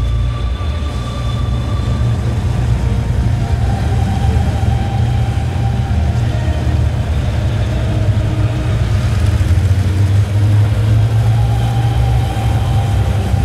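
Twin Pratt & Whitney R-1830 Twin Wasp radial engines of a Consolidated PBY Catalina flying boat running at taxi power, a steady low drone.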